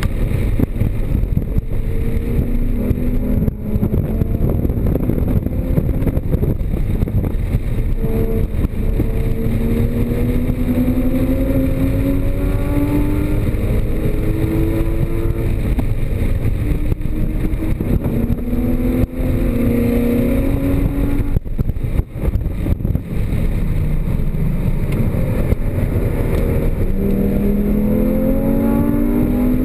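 Porsche Cayman GTS flat-six engine under hard acceleration on a race track, its pitch rising again and again as it pulls through the gears, over a constant heavy rumble of wind and road noise.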